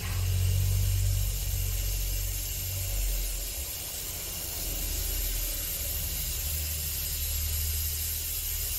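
Trapped air hissing steadily out of the opened air-bleed screw on a water filter housing as it is purged after filling, with a low rumble underneath. The air seems to be coming from the house pipework as well as from the housing.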